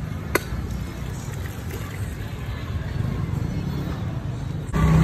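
Street-market ambience: a steady low rumble of motorbike engines and crowd noise. A louder low engine sound cuts in near the end.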